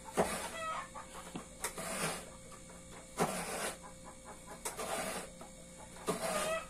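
Coconut being grated by hand on a stool-mounted coconut grater (kudkuran): a coconut half is scraped against the serrated blade in about five strokes, roughly one every second and a half.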